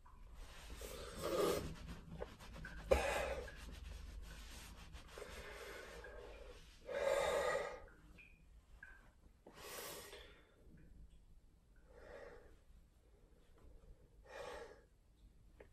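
A man breathing heavily while drying off with a towel: about six breaths or sighs a couple of seconds apart, the loudest about seven seconds in. Faint towel rustling against his face and hair runs under the first half.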